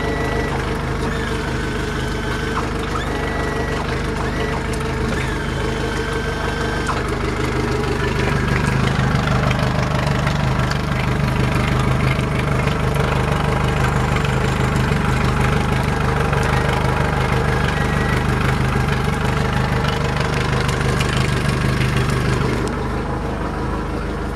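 Yamaha 115 hp outboard motor idling steadily. It grows louder about a third of the way in and drops back a little near the end.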